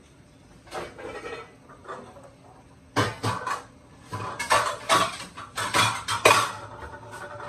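Kitchen dishes and metal cutlery clattering: a few soft knocks about a second in, then a quick run of sharp clinks and knocks.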